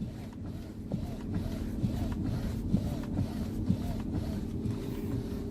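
Hyundai Elantra steering wheel turned back and forth with the car standing, over a steady engine hum: a faint whine rises and falls about twice a second, with a few light clicks. The heavy column knock is gone after a new flexible coupling, though a small thud remains, which the mechanic suspects is play in the steering box.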